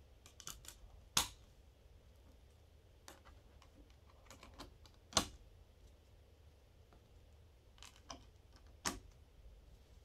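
Blu-ray discs clicking onto the plastic centre hubs of a steelbook case: three sharp clicks, about a second in, about five seconds in and near the end, with lighter taps and rattles of handling between.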